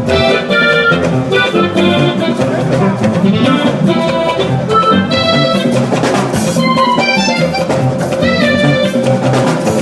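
Instrumental church-band music: bright pitched melody notes over drums with a steady beat, no singing.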